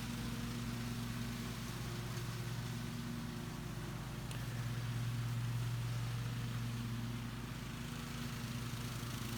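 Riding lawn mower engine running steadily while mowing up leaves, swelling slightly louder about five seconds in.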